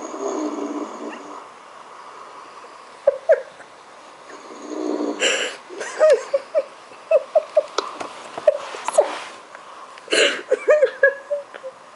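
A man snoring in his sleep: two long snores about four seconds apart. Short high yelping sounds come between and after them.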